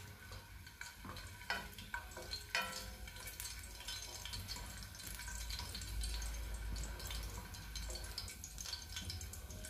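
Olive oil gently sizzling around whole garlic cloves and split chili in an aluminium frying pan, with small scattered crackles and pops as a wooden spoon stirs the garlic. A low steady hum lies underneath.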